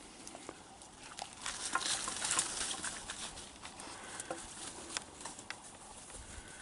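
Footsteps crunching and rustling through dry leaf litter and brush, with scattered snapping clicks of twigs. The crackling is busiest about two seconds in.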